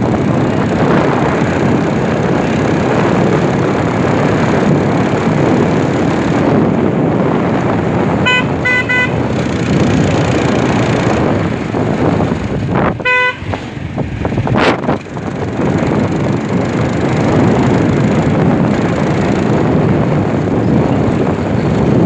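Vehicle horns: a quick double toot about eight seconds in and a single short honk about five seconds later, over a steady, loud rushing noise.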